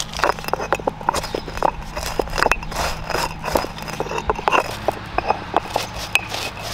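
Stone roller crushing dry whole spices on a flat stone grinding slab: a dense run of irregular crackling crunches as seeds and dried chillies break under the rolling stone.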